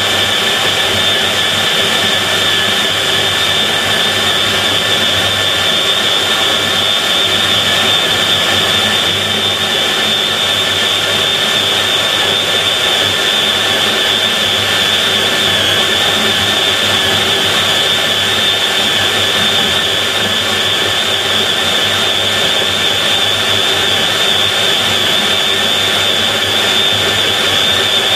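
Fein KBM 50 Auto magnetic core drill cutting a 50 mm hole in metal plate with an annular cutter under automatic feed. A steady high motor whine over cutting noise, unchanging throughout.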